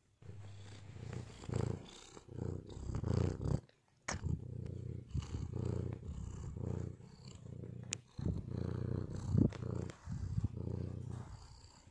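Domestic cat purring in a steady low rumble, breath after breath, breaking off briefly about four seconds in.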